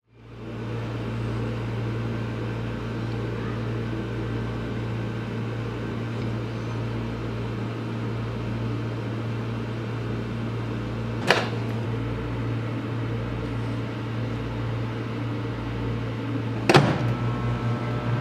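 Microwave oven running with a steady hum. A sharp click comes about eleven seconds in and another near the end, after which the hum turns into a rapid pulsing.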